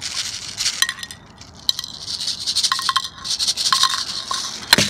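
Steel BBs being poured into a BB gun to reload it: a dense rattle of small metal balls with light ringing clinks, and one sharp click near the end.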